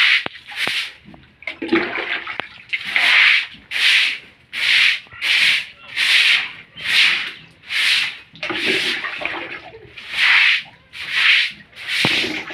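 A stiff stick broom swishing and scrubbing across a wet concrete floor, in regular strokes about one a second as the floor is washed down with water.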